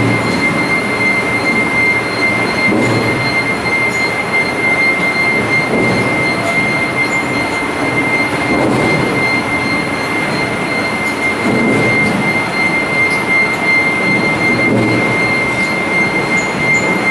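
Sweet corn husking line running: the husker and its conveyor belts make a steady, loud mechanical noise with a constant high-pitched whine over it.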